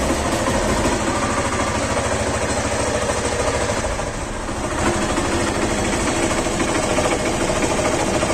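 Honda Stunner motorcycle's single-cylinder engine running steadily, played so its current condition can be heard.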